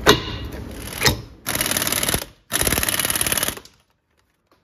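Impact wrench hammering in two short bursts on the pinion nut of a rear differential, after a couple of sharp knocks. It is tightening the nut to set the pinion bearing preload on the crush sleeve, where too tight ruins the bearing and too loose ruins the differential.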